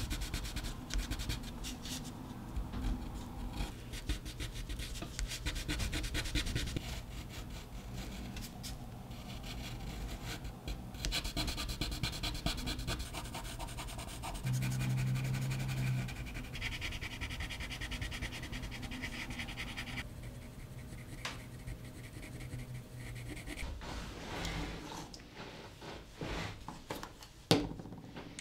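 Coloured pencil scratching and rubbing on watercolour paper in many quick, short shading strokes. A single sharp knock comes near the end.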